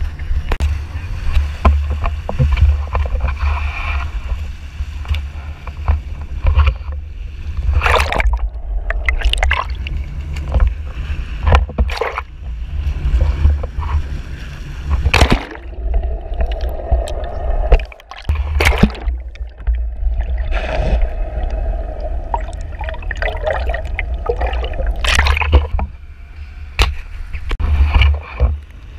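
Sport-fishing boat under way: a steady low rumble with the wake sloshing and splashing at the stern, broken by many sudden loud splashes.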